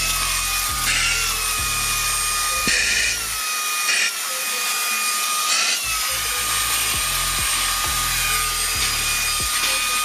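AutoBot VX cordless handheld vacuum cleaner, with a 120 W brushless motor, running while it sucks crumbs from a cloth car seat: a steady high motor whine over rushing air, its pitch dipping briefly a few times.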